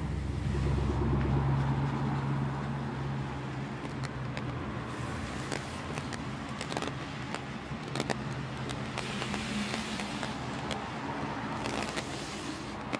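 Heavy rain with city traffic: a vehicle's engine rumble is loudest in the first few seconds, then eases into a steady hiss of rain on wet pavement, with scattered sharp ticks and taps of falling drops.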